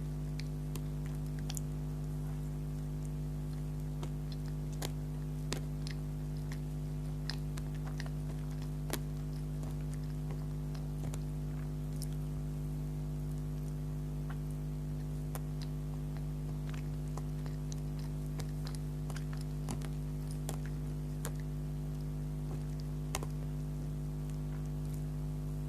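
Close-up mouth sounds of someone slowly chewing soft donut, with scattered small wet clicks. Under them runs a steady low hum of several fixed tones, which is the loudest thing throughout.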